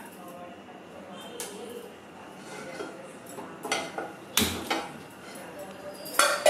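Kitchen clatter: a metal frying pan and utensils knocking on a gas stove. There are a few sharp clanks about halfway through and louder ones near the end.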